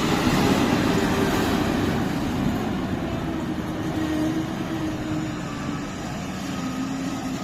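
Self-propelled peanut pickup harvester running in high gear at speed: a steady engine and machinery drone that slowly fades.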